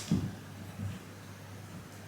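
A soft low thump just after the start and a weaker one just before the one-second mark, over a steady low hum.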